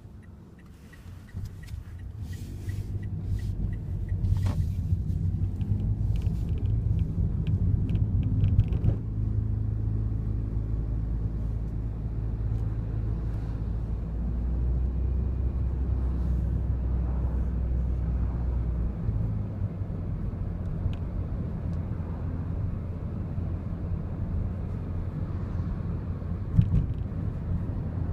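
Daihatsu Wake's cabin while driving: a steady low engine and road rumble, with light clicking and rattling through the first several seconds. The rattle is the abnormal noise from around the driver's seat belt.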